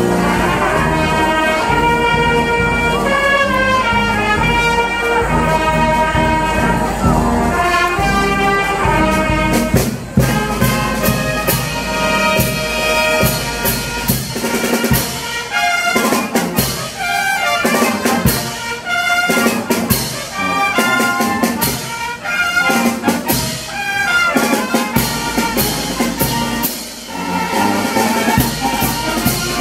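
Marching brass band playing: held brass chords for about the first ten seconds, then drum and cymbal strikes come in under short, punchy brass phrases.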